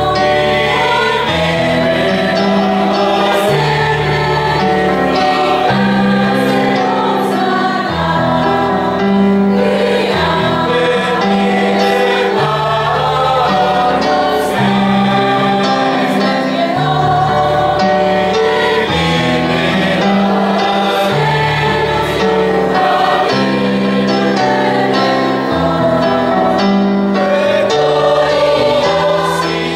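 Mixed choir of men and women singing in harmony, with keyboard accompaniment holding sustained low notes that change every second or two.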